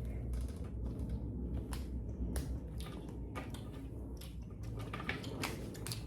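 Small plastic toy pieces and packaging being handled: a run of irregular clicks and crackles.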